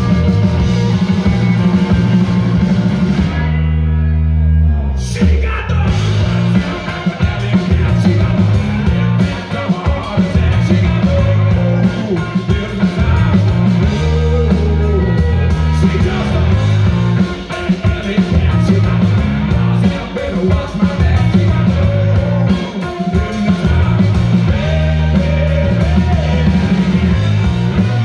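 Live rock band playing: electric guitar, bass guitar and drum kit, with a man singing. About four seconds in the band briefly drops to a low held note, then comes back in full.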